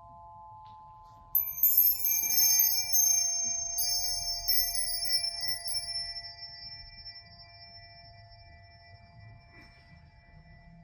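Crystal bar chimes swept about a second in, a shimmering cluster of high ringing notes, swept again a couple of seconds later, then ringing out and fading slowly. A few steady lower ringing tones sound underneath and fade away.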